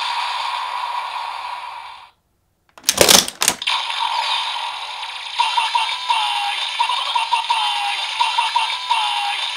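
DX Revice Driver toy belt with the Rolling Vistamp playing its electronic sounds: finisher music fades out about two seconds in, then after a short gap comes a loud burst of plastic clicking and rattling as the stamp is worked in the driver. The driver's standby music then starts, with a synthesized voice chanting "V-V-V-Vice! V-V-V-V-Vice!" over and over.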